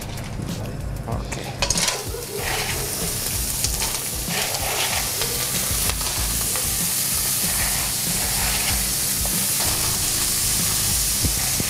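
Live clams dropped by the handful into hot olive oil and garlic in a frying pan, sizzling. A few sharp clicks come in the first couple of seconds, then the sizzle builds from about two seconds in and holds.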